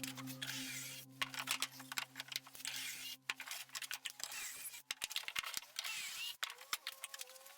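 Soft background music whose low notes fade away around the middle, with many irregular sharp clicks and taps scattered throughout.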